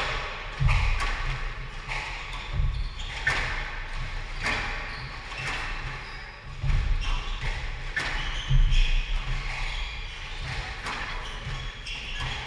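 Squash rally: the ball cracks off the rackets and the walls about once a second, each hit ringing briefly in the court, with players' footsteps thudding on the wooden court floor.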